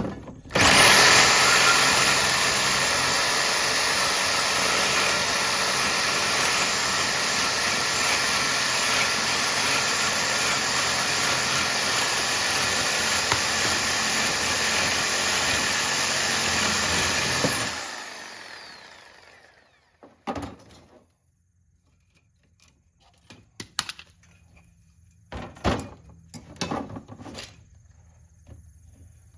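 Corded reciprocating saw (Sawzall) cutting through the metal side of a copper-aluminum radiator, a steady saw noise with a high motor whine for about seventeen seconds that then winds down. A few short knocks follow as parts are handled.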